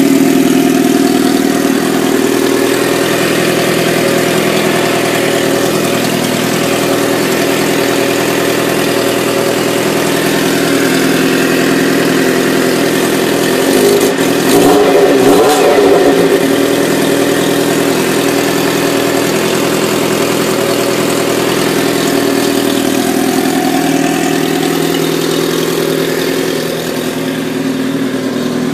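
1997 Suzuki GSX-R 750 inline-four engine running at idle with a ticking noise. The owner takes the tick for valves out of adjustment and a worn cam chain tensioner. About halfway through, the revs briefly rise and fall.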